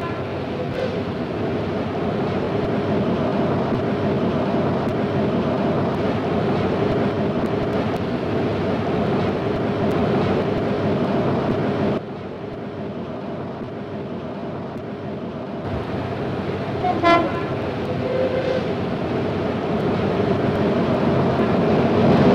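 Washington Metro electric train running, a steady rumble with a humming tone. The level drops suddenly about halfway through, a short horn toot sounds about two-thirds of the way in, and a louder horn blast comes at the very end as a train passes.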